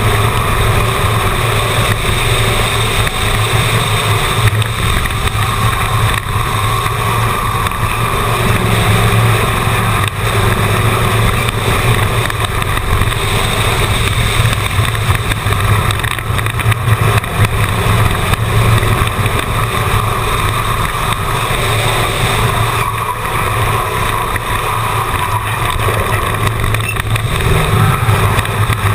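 Stock car's engine running hard and fairly steadily around an oval, with wind and road noise. It is heard from a camera mounted on the car.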